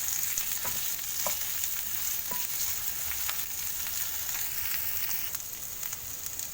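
Ingredients sizzling in hot oil in a pan as they are stirred, a steady frying hiss with a few light clicks of the utensil against the pan.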